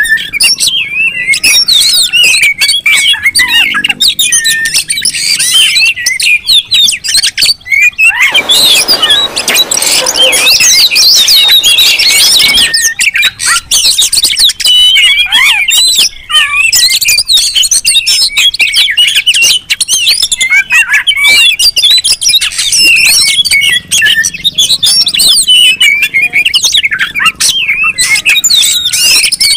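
Several oriental magpie-robins singing and calling at once in an excited, territorial chorus: quick, overlapping whistled phrases and squawks. About eight seconds in, a harsh rasping sound runs for some four seconds over the calls.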